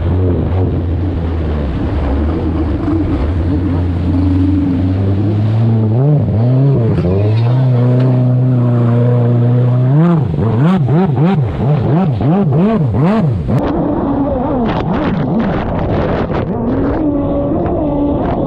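Engine running hard with its pitch climbing in steps, held steady for a few seconds, then revved up and down about twice a second as the throttle is worked. Later a series of sharp knocks sound over the engine.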